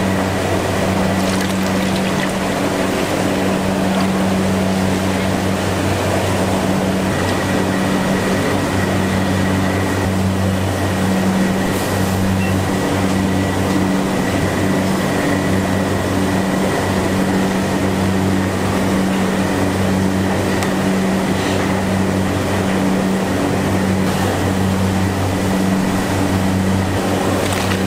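Steady mechanical drone of commercial kitchen equipment, with a constant low hum under an even rushing noise and a few faint clicks.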